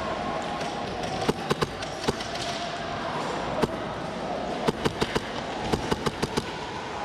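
Airsoft guns firing: scattered sharp cracks of single shots and BB hits, in quick groups about a second in, once near the middle and in a fast string toward the end, over a steady background noise.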